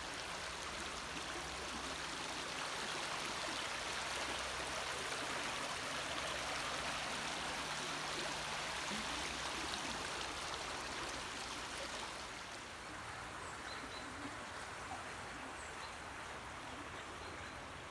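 Steady rushing of a stream flowing through the opening beneath a flood-control bridge's steel gate, growing somewhat quieter about two-thirds of the way through.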